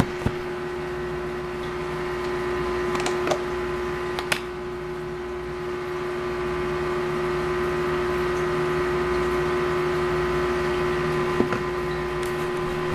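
Steady electric hum from a small motor, with a few short clicks and taps now and then.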